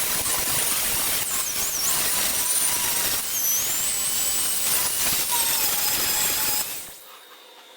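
Power tool running against a workpiece: a harsh rasping noise with a thin, wavering high whine. It cuts off abruptly near the end.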